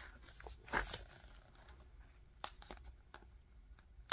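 Faint handling of a cardboard board book: light rustling with a few small clicks and taps as stiff cardboard flaps and pages are moved, and a sharper click near the end.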